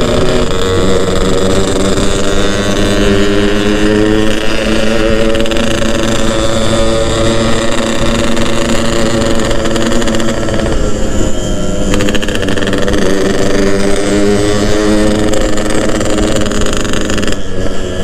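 Yamaha RX-King two-stroke motorcycle engine running under steady throttle while riding, with wind and road noise. Its pitch wavers briefly about eleven seconds in and falls near the end.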